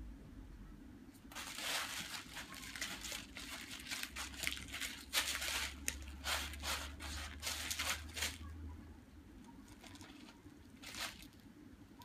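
A kitten scratching and digging in cat litter in a plastic litter tray: a run of gritty, crunchy scrapes from about a second in until about eight seconds, then one more brief scrape near the end.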